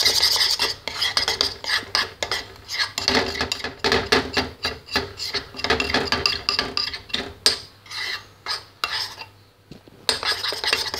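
Metal spoon scraping and clinking against the sides of a bowl while stirring a really thick, foamy soap slime mixture, with a short pause near the end.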